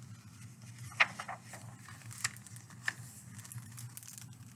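Pages of a large hardcover picture book being turned and handled: a few short paper rustles and taps, the loudest about a second in, over a faint steady hum.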